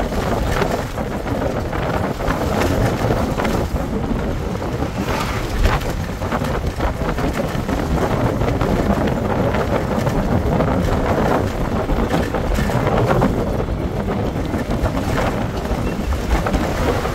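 Steady engine and road rumble inside a moving bus, with frequent small rattles.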